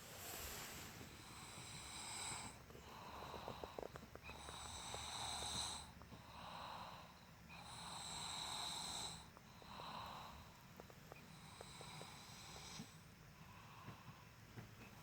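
A boy snoring in his sleep, a deep snore like an adult's, with slow, regular breaths about every three to four seconds.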